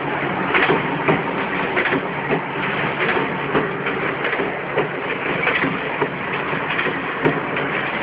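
Punching press and forming line for solar water heater stands running, a steady machine noise broken by sharp clanks at irregular intervals of about a second.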